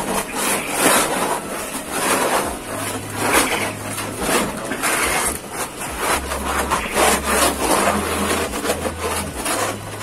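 Wooden scraper rasping across a wooden droppings tray in repeated strokes, about one a second, scraping quail droppings off it.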